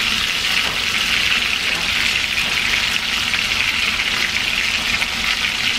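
Boneless chicken thighs frying in oil in a skillet: a steady sizzle.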